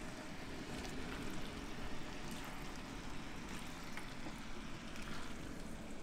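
Ground meat and vegetable mixture sizzling steadily in a frying pan on a gas stove while it is stirred with a wooden spoon, with a few faint scrapes and taps.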